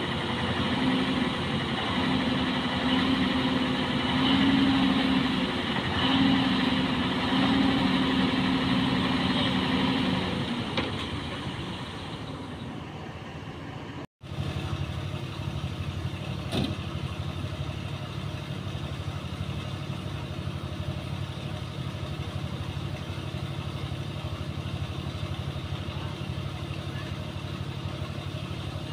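Self-loader truck's diesel engine running, with a strong steady hum on top that breaks off twice and stops about ten seconds in. After a short break, the engine idles steadily, with one sharp click partway through.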